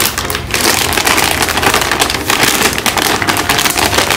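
Foil-lined plastic snack bags crinkling and crackling as they are handled and squeezed, a dense, continuous rustle.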